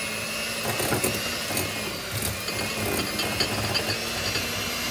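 Electric hand mixer running steadily, its beaters creaming chunks of butter and cream cheese in a glass bowl, with irregular knocks and clatter as the beaters strike the lumps and the bowl.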